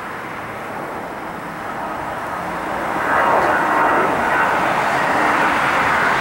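Twin CFM56-5B turbofans of a US Airways Airbus A319-112 at takeoff thrust during the initial climb-out. The jet noise swells steadily and gets markedly louder about three seconds in as the airliner climbs past, then holds.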